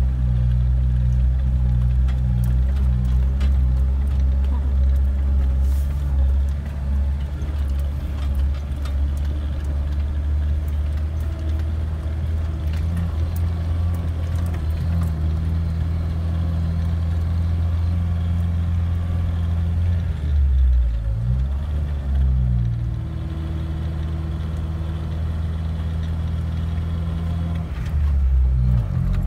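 Jeep engine running steadily as it drives on soft sand, heard from inside the cabin. Its note dips and climbs again about two-thirds of the way through, and dips once more near the end as the speed changes.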